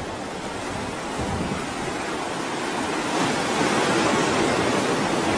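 Steady rush of ocean surf breaking on a rocky shore, with wind on the microphone, growing gradually louder.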